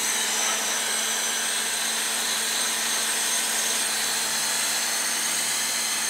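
A hot-air blower running steadily: an even rush of air with a thin high whine, blowing heat onto a power supply's metal case.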